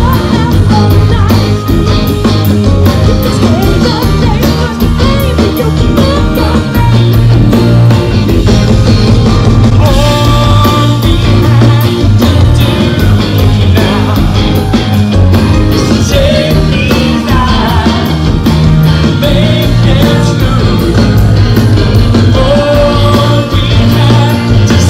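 Live rock band playing with a singer over a steady drum beat.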